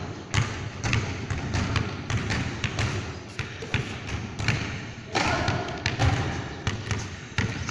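Basketball dribbled and bounced on a hard court floor: a string of irregular thuds, echoing in a large hall.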